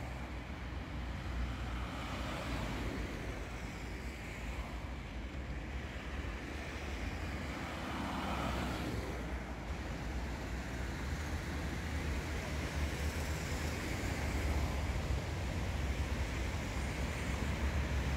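Road traffic crawling along a snow-covered street: a steady low rumble of car engines and tyres, growing slightly louder near the end.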